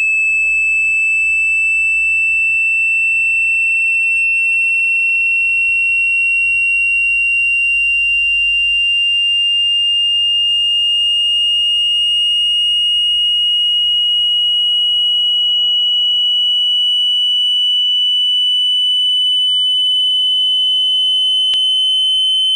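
Loud, steady, high-pitched pure electronic tone that slowly rises in pitch, with a gentle throb about once a second. It is a water-ejection tone, meant to be played at full volume through a phone's speaker so the vibration shakes trapped water out of it.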